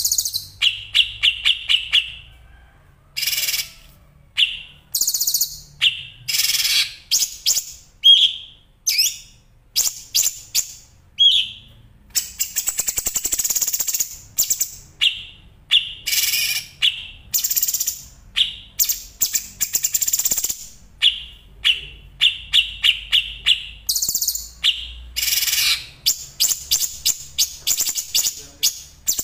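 Songbird song: tightly packed runs of sharp, high chirps and rapid trills, sung in short bursts with brief pauses between them. A longer rattling stretch comes about halfway through.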